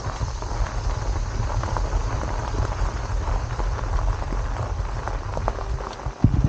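Bicycle tyres crunching over a loose gravel trail, a dense patter of small ticks, with wind rumbling on the microphone of the moving bike. A few heavier bumps come just before the end.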